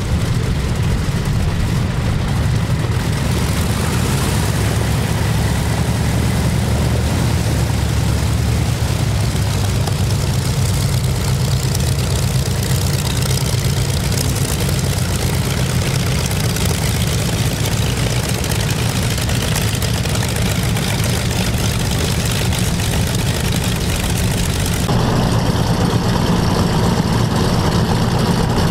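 Twin Pratt & Whitney R-2800 radial engines of a Grumman F7F Tigercat running at idle with a steady low rumble as the aircraft taxis. About 25 seconds in, the sound changes abruptly to the engines as heard from inside the open cockpit.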